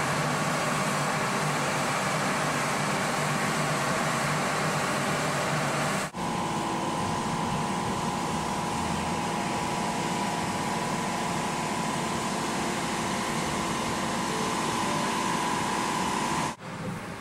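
Steady mechanical hum of running machinery with a thin steady whine through it. It breaks off for a moment about six seconds in and again near the end.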